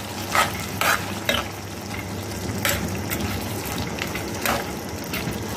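Chopped tomatoes and whole spices sizzling steadily in hot oil in a metal pot, as a metal spoon stirs them, scraping and knocking against the pot a few times.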